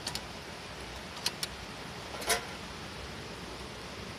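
Split logs burning in an open campfire: a steady hiss with a few sharp crackles and pops, two close together at the start, two more just past a second in, and the loudest a little after two seconds.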